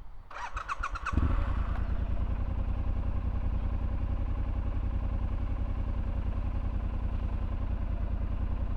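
Triumph Scrambler 1200 XE's 1200 cc parallel-twin engine started with the electric starter: a brief whir of cranking, then it catches about a second in and settles into a steady idle.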